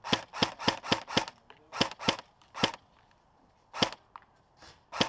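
Airsoft gun firing single shots, each a sharp snapping pop: a quick run of five in the first second or so, then three more spaced out, and one more after a pause of about a second.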